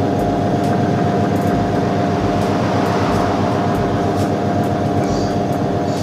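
Polytron PAW 9010LB top-loading washing machine running its spin cycle: a steady motor hum and whine with a low throb repeating a little faster than once a second. The machine spins now that a universal water level sensor has replaced the faulty one.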